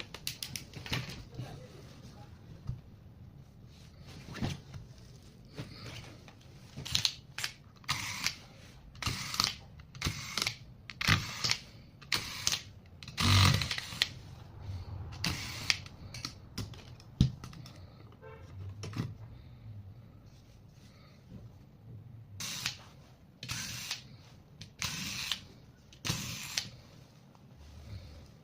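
Laptop disassembly handling: irregular clicks, taps and short scraping sounds of plastic case parts and small hand tools being worked.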